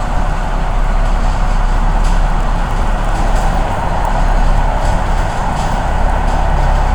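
Steady, loud running noise of a vehicle in motion, a low hum under an even rushing noise, with no change in pace.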